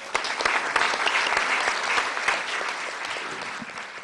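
Audience applauding at the end of a talk, the clapping fading away near the end.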